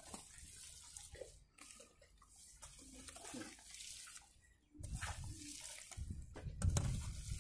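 A hoe working a heap of wet clay-and-earth brick mud: irregular wet scraping and squelching, with a heavier low rumble from about five seconds in.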